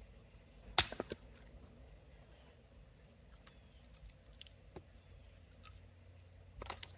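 An axe strikes a log of firewood and splits it, with a few quick knocks of the pieces falling, just under a second in. Near the end, split pieces of firewood clatter onto the woodpile.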